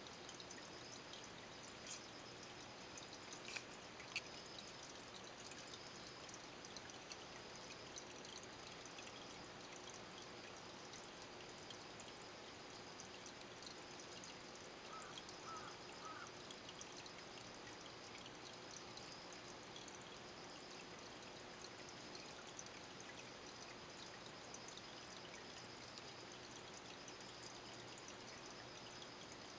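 Faint, steady trickle and bubbling of water from a small aquarium's sponge filter, with a few small clicks a few seconds in.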